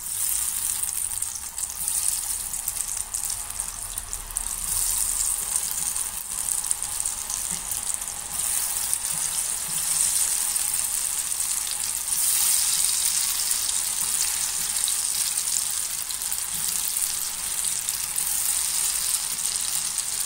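Curd-and-cornflour-coated potato strips deep-frying in hot oil in a kadai: a steady sizzle that grows louder in steps as more strips go in.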